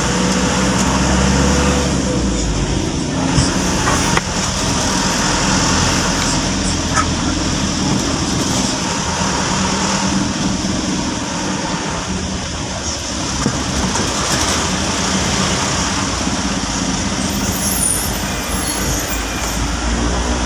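Engine hum and road noise of a car driving slowly through city street traffic, with a few light knocks.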